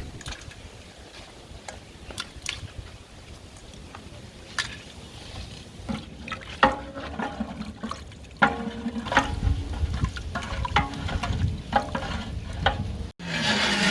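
A ladle stirring and scraping a pot of chicken masala cooking over a wood fire, with scattered clicks. Past the halfway point a louder passage with held tones comes in.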